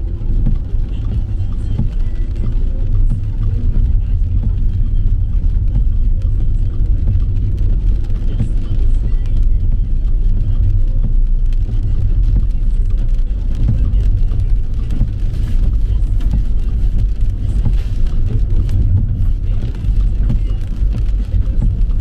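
Mercedes-Benz car driving on a rain-wet road, heard from inside the cabin: a steady low rumble of engine and road noise.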